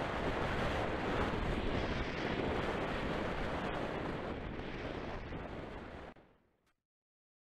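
Airflow rushing over the microphone of a camera mounted on a 1/8-scale Nemere model glider in flight: a steady, loud noisy rush with no motor, easing slightly, then fading out quickly about six seconds in.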